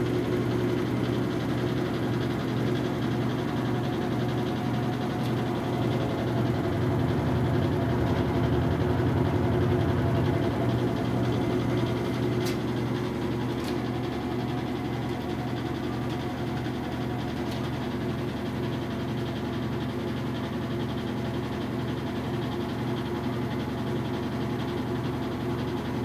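Whirlpool top-load washing machine in its spin cycle: a steady motor and drum hum. It swells a little partway through, then settles. No knocking from the drum, the spin test after its suspension dampers were repaired.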